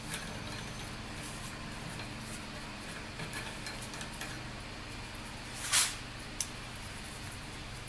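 Hand tap being turned with a T-handle tap wrench in a steel plate held in a bench vise: faint metallic clicks and creaks over a steady low hum, with a short loud scraping hiss about three-quarters of the way through and a single sharp click just after.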